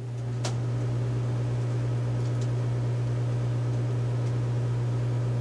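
A steady low machine hum, building over the first half-second and then holding level, with a single sharp click about half a second in.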